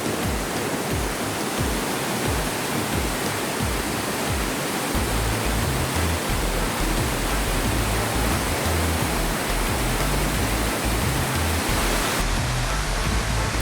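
Steady rushing of a waterfall, a continuous even wash of falling water with an uneven low rumble underneath.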